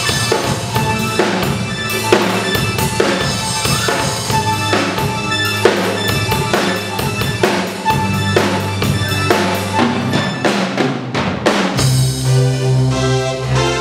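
Student rock band playing an instrumental passage, with drum kit, electric guitars and keyboards over a steady bass line. The drums drive it with bass drum, snare and rimshots, closing in a quick run of hits. Near the end the drums drop out and a held keyboard chord rings over the bass.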